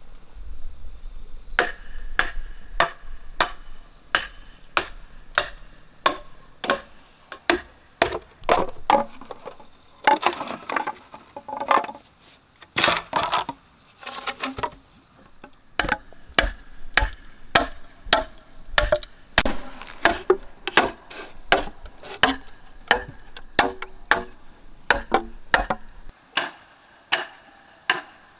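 Machete chopping bamboo in even strokes, about three every two seconds, with a few seconds of denser, rougher cutting around the middle.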